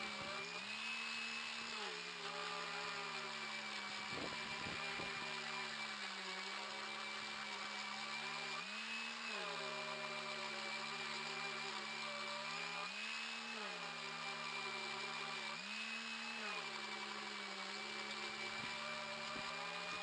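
Corded random orbital sander running steadily on a redgum and epoxy resin table top, doing the final sand with 180-grit paper. Its hum shifts in pitch briefly a few times as the load changes.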